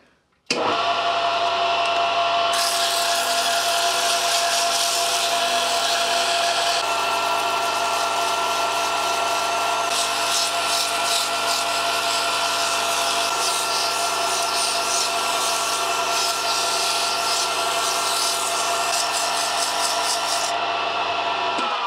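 Lathe running at its fastest speed with 120-grit sandpaper pressed against the spinning handle: a steady motor hum under a continuous hissing rub of the abrasive. It starts abruptly about half a second in, and the rubbing grows brighter a couple of seconds later.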